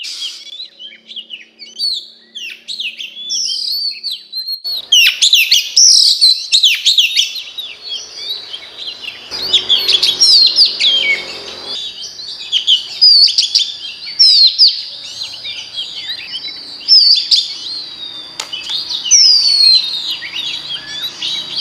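Female oriental magpie-robin singing: a fast, unbroken run of varied whistled notes and quick sweeping chirps, high-pitched, growing louder after the first few seconds.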